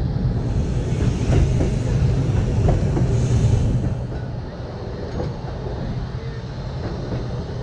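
Open-topped Blackpool tram running along the track, heard from on board: a steady low rumble of wheels on rail with occasional light clicks. It eases slightly in loudness about halfway through.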